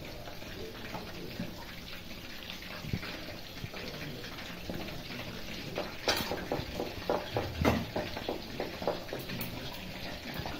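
Chicken lollipops deep-frying in hot oil in an iron kadai: a steady sizzle, with a quick run of louder crackles and pops from about six seconds in.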